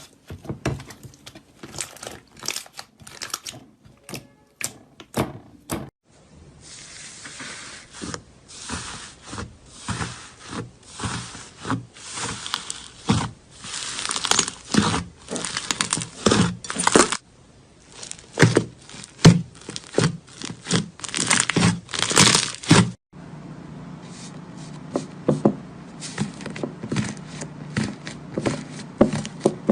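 Slime being squeezed and stretched by hand, giving a dense run of sharp clicks, pops and crackles. The character of the sound changes abruptly about six seconds in and again about two-thirds of the way through.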